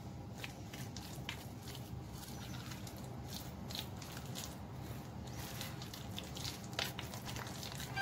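A fork stirring floured, egg-marinated chicken pieces in a bowl: irregular soft squelches and light clicks of the fork against the bowl, over a steady low hum.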